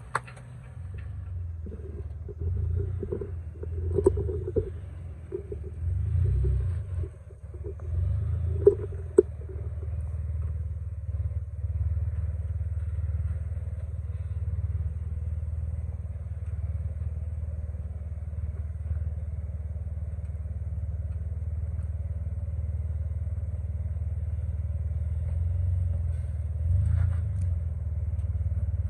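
Four-wheel-drive vehicles crawling over rocks. For about the first ten seconds the engine surges unevenly, with sharp knocks of tyres and rocks. After that a steady low engine rumble runs as a Jeep Wrangler climbs a rock ledge.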